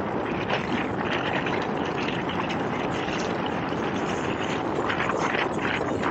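Rigid inflatable boat running at speed across choppy river water: a steady rush of water and spray along the hull, with wind on the microphone.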